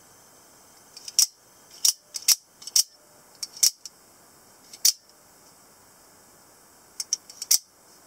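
Double-edged out-the-front automatic knife (Scarab D/E type) being cycled with its thumb slider, the blade snapping out and back into the handle. A string of sharp metallic clicks, about seven loud snaps with lighter clicks before some of them, a pause, then a last quick cluster near the end.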